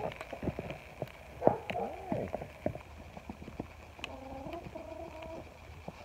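Chickens calling in low, drawn-out calls: one arching call about a second and a half in and a longer, steadier call about four seconds in, among scattered light clicks and knocks.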